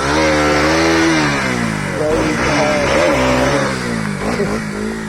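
Bajaj Pulsar RS200 motorcycle engine revved hard. Its pitch climbs and falls twice, then it settles to a lower, steadier note near the end.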